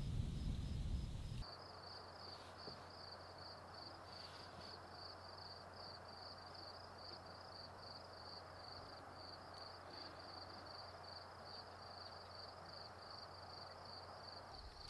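A cricket chirping in a steady high-pitched pulse, several chirps a second, over a faint evening hiss. The first second and a half holds a low rumble that stops suddenly.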